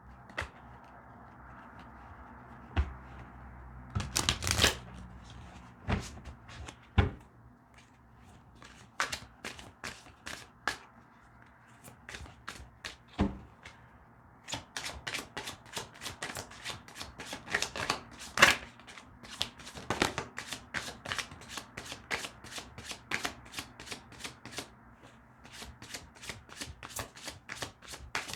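A deck of reading cards being shuffled by hand: scattered card slaps and flicks at first, then a quick even run of card snaps, about three a second, through the second half.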